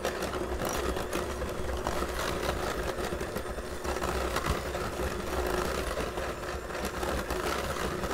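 Electric hand mixer running at a steady speed, its beaters creaming butter and brown sugar in a glass bowl.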